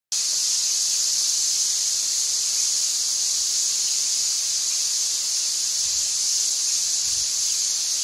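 Massed begging calls of a red-billed quelea nesting colony: hundreds of thousands of chicks calling at once, merging into a steady, high-pitched hissing din.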